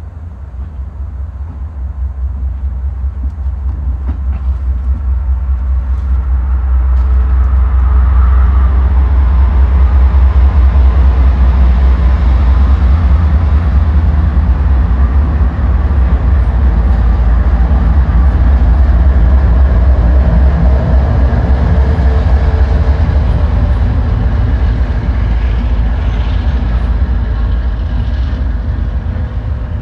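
Norfolk Southern diesel freight locomotives approaching and passing, a deep engine rumble that grows louder over the first eight seconds and then holds steady, easing slightly near the end.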